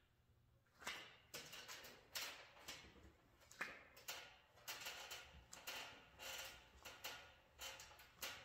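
Faint, repeated short scuffing strokes, about two a second, as gloved hands press and push on a truck's windshield glass to roll its rubber gasket lip over the pinch weld and seat it.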